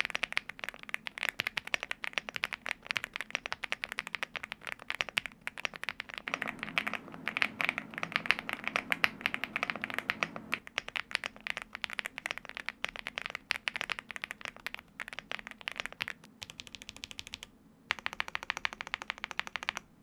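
Fast continuous typing on a Leobog Hi75 budget gasket-mounted mechanical keyboard with stock, unlubed Greywood V4 linear switches and double-shot PBT keycaps: a dense stream of key clacks as the keys bottom out. It is heard partly through a dynamic mic and partly through the camera's mic, and the typing breaks off briefly about seventeen seconds in.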